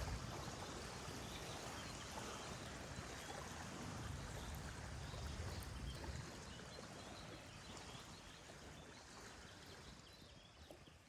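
Running stream water with faint bird chirps, fading out steadily toward the end.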